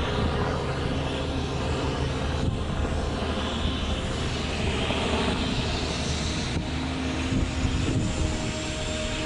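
Helicopter running on the ground with its rotor turning: a steady turbine whine over the rotor noise, holding an even level.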